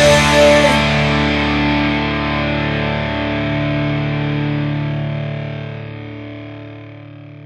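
The final chord of a rock song: a distorted electric guitar chord left to ring after the drums stop, slowly dying away.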